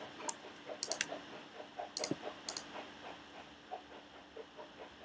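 Sharp computer mouse clicks, about six of them within the first three seconds, over a faint, rapid ticking.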